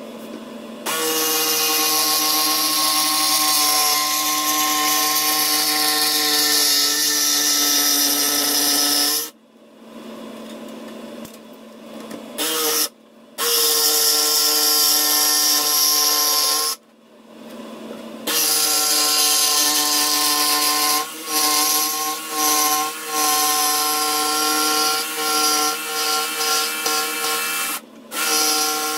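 Electric jigsaw running in three long runs of several seconds each, with short pauses between them. In the last run the motor dips and picks up again several times.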